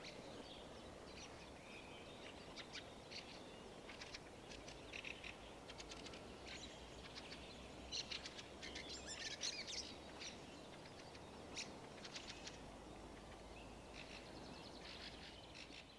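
Small songbirds chirping and singing faintly, with short high calls scattered throughout, over faint steady background noise.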